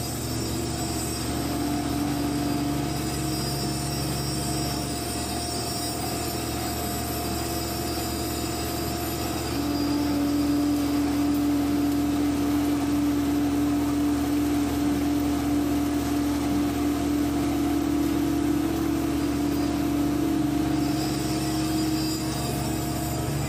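PC120 hydraulic excavator's diesel engine running steadily under hydraulic load as the bucket swings and tips out concrete, heard from inside the cab. About ten seconds in a stronger steady tone comes in and the sound grows a little louder, easing off again near the end.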